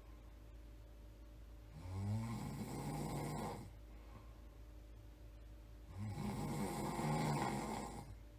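A person snoring: two long snores, each about two seconds, coming about four seconds apart with quieter pauses between.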